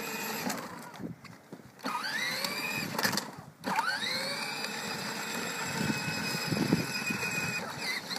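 Electric motor whine of a kids' battery-powered ride-on ATV. It stops briefly and starts again twice, about two and four seconds in, rising in pitch as it spins up each time, then holds steady.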